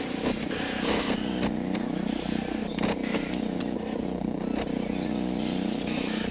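Street traffic: several small engines running at once, their pitches drifting up and down against each other, with a few short sharp clicks.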